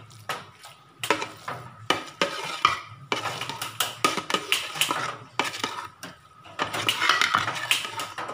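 Steel spatula scraping and clinking against a metal pot in quick, irregular strokes while stirring and turning nearly cooked biryani rice. The strokes are sparse for the first second, then come thick and fast.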